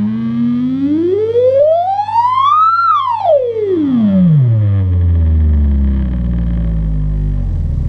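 Test tone played through a homemade 500-watt amplifier and its speakers, gliding up in pitch to a peak about three seconds in, then falling back down and settling into a steady deep bass tone.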